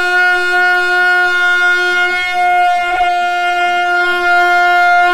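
A football commentator's long, drawn-out goal cry: one 'gooool' held at a steady high pitch without a break.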